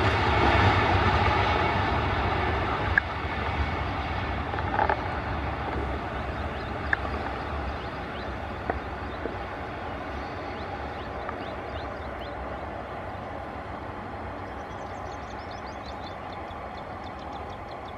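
Passenger train running away down the track after passing, its low rumble fading steadily. A few sharp clacks come in the first half.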